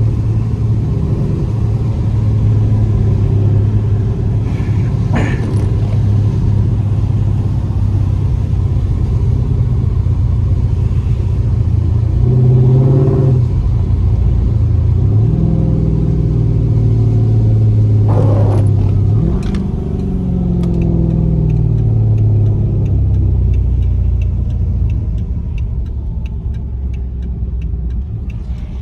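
Dodge Charger's swapped-in 392 (6.4 L) HEMI V8 running while driving, heard through a cracked window. Its pitch climbs and drops as the car speeds up, shifts and slows, and it settles lower near the end. A faint regular ticking comes in over the last few seconds.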